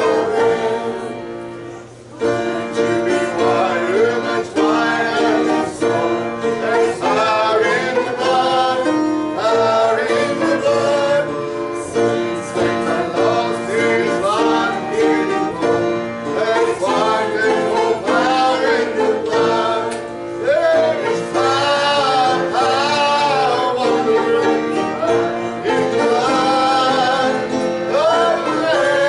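Music: a song sung with instrumental accompaniment, dipping briefly about a second in before carrying on.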